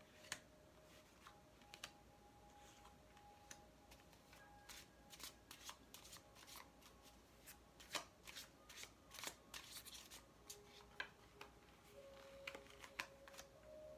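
A deck of Light Seer's Tarot cards being shuffled by hand: quiet, irregular card-on-card clicks and slides, busier in the second half.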